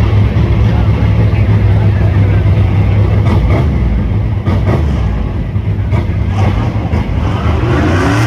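Rock bouncer buggy's engine running loud and steady, with a few knocks partway through, then revving up near the end.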